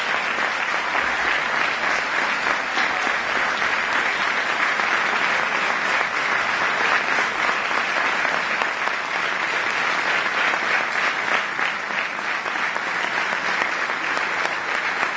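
A concert audience applauding steadily, a dense even clapping with no music.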